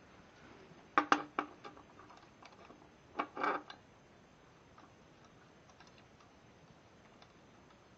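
Metal square being set against a miter saw's table and fence: a few sharp clicks and clacks about a second in, then another short cluster a little after three seconds.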